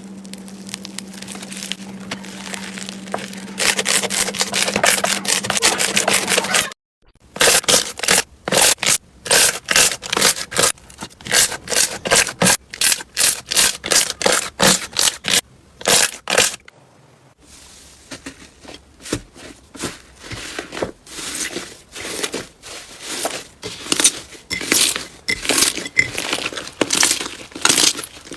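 Hands squeezing and pressing crunchy slime, with crackling and squishing. It starts as a dense run of crackles, then after a sudden cut becomes repeated crackly presses, about two a second, with a short pause about halfway.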